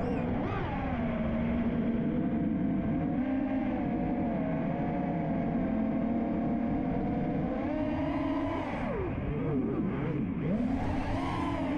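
Five-inch FPV freestyle quadcopter's brushless motors (Ethix Stout 2306 1750 kv) whining, the pitch rising and falling with the throttle. About two thirds of the way in the pitch drops sharply, then sweeps back up as the throttle is punched again.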